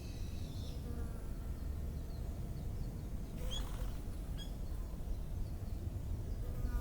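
Bees buzzing with a steady low hum, with a few faint bird chirps and a short burst of sharp bird notes about halfway through.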